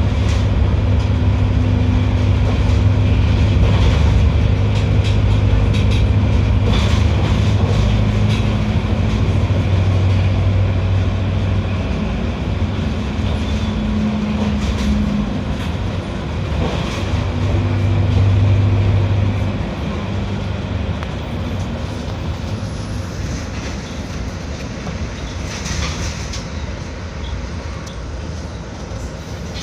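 Mercedes-Benz OF 1721L BlueTec 6 bus engine running with a steady low drone. It eases off and gets a little quieter after about twenty seconds.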